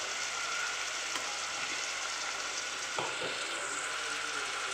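Chopped shiny bush (mashithandu) greens sizzling steadily in hot coconut oil in a pan as ground paste is spooned onto them, with a soft knock about three seconds in.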